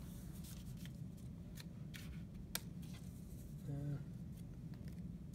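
A paper sheet rustling and sliding on a drafting table as it is turned by hand, with a few light clicks, the sharpest about two and a half seconds in, over a steady low room hum. A brief hummed voice sound comes near four seconds in.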